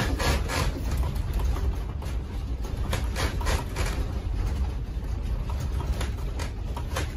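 A room rattling as a strong earthquake shakes the building. A steady low rumble runs under rapid clattering and knocking, which is thickest in the first couple of seconds and thins out later.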